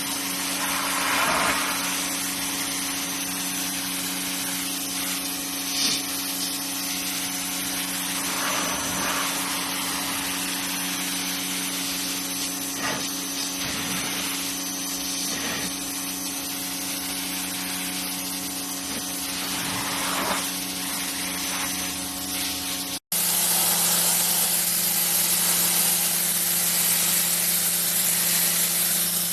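Pressure washer spraying: a steady hiss of the water jet over the low, even hum of the pump. About three-quarters of the way through it cuts abruptly to a louder, brighter spray.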